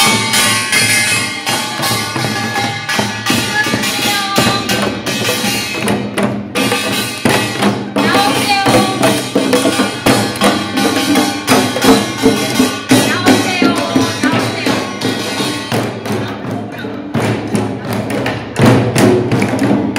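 Korean pungmul percussion band playing: janggu hourglass drums beaten in a fast, driving rhythm, with the ringing clang of small handheld brass gongs.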